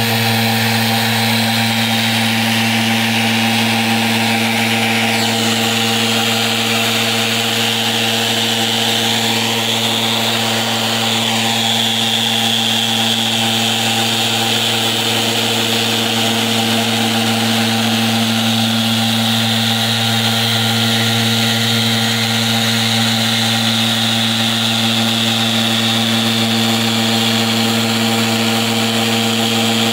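Festool random orbital sander running steadily, its motor giving a constant hum with a hiss from the abrasive pad working over the painted surface of a wooden panel door.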